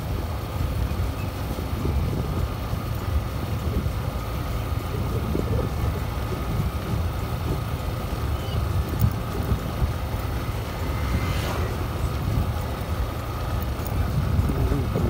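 Motorcycle ride heard from a helmet-mounted phone: steady engine and road rumble with wind buffeting the microphone. A short higher-pitched sound cuts through about eleven seconds in.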